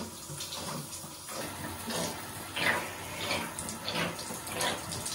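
Shower head spraying water onto a person and the tiled floor, a steady splashing hiss. After about a second there are several short, sharp puffs of breath, spaced well under a second apart, as she breathes through the cold water.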